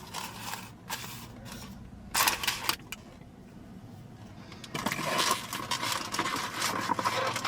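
Paper rustling and crinkling as napkins and food packaging are handled: a few small clicks, a short crinkle about two seconds in, then steadier rustling over the last few seconds.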